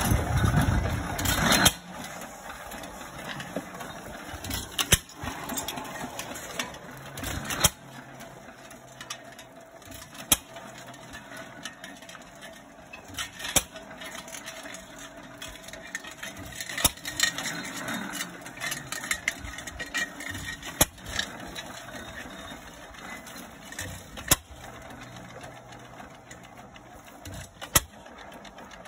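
Economy 5 hp single-cylinder hit-and-miss engine running. It fires with a sharp bang every three seconds or so, with a steady light mechanical clatter between firings. It is louder for the first couple of seconds.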